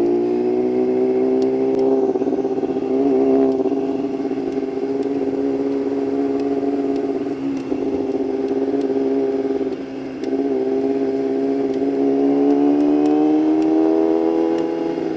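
Yamaha YZF-R6's inline-four engine through a Shadux aftermarket exhaust, running steadily at moderate revs while riding. Its pitch rises gently over the first couple of seconds, the sound drops briefly about ten seconds in, and the pitch climbs again a couple of seconds later.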